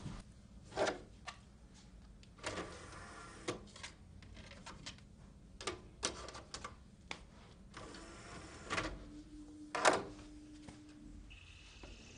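Compact discs being handled and loaded into a disc player's tray: scattered light plastic clicks and knocks at irregular intervals, with a short low hum about nine seconds in and a brief higher tone near the end.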